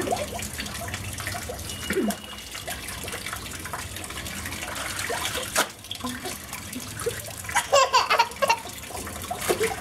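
Water running steadily from a wall tap into a plastic tub, with a toddler's laughter and voice coming and going, loudest about eight seconds in.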